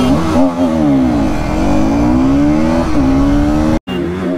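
A 200 cc single-cylinder sport motorcycle engine pulling hard at full throttle off a drag-race launch. Its pitch climbs and drops as it shifts up through the gears. The sound cuts out briefly near the end.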